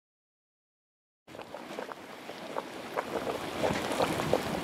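Dog Bone Geyser's vent splashing in a very low eruption: irregular small splashes of hot water, starting about a second in and growing slowly louder.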